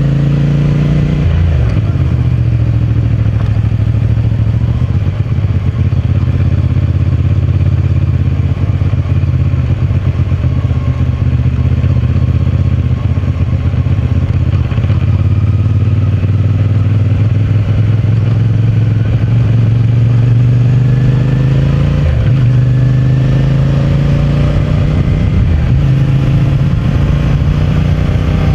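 CFMOTO 450MT parallel-twin engine through its stock exhaust, riding under way. It pulls up in pitch, drops suddenly about a second in as it shifts up, holds a steady cruise, then drops again about 22 seconds in with another upshift and pulls up once more near the end.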